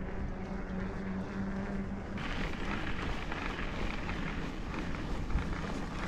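Bicycle in motion: steady rolling noise of the tyres mixed with wind on the microphone. A low hum runs for the first two seconds, then the sound changes to a brighter hiss of tyres on a gravel road.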